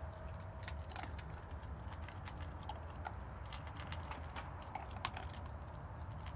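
Dogs eating dry kibble from bowls: irregular crunching and small clicks, several quick clicks at a time.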